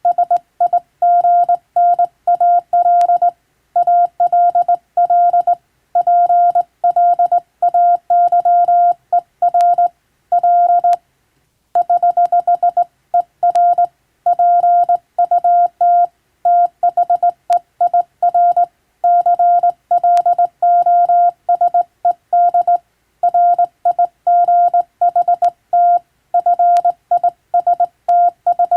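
Hand-keyed Morse code: a single steady beep tone switched on and off in short dots and longer dashes at an even sending pace, with a brief pause about eleven seconds in.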